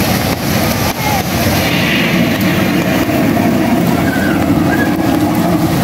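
Small fountain jets splashing steadily into a pool, a continuous rush of falling water.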